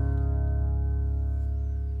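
A Taylor acoustic guitar's last chord ringing out, held and slowly fading with no new strum.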